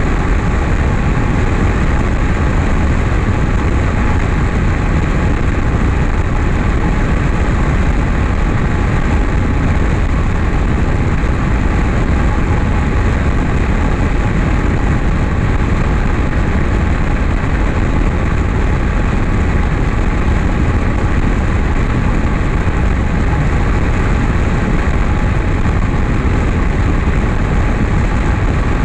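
Light aircraft's piston engine and propeller running steadily, heard through heavy wind rush on an outside-mounted camera.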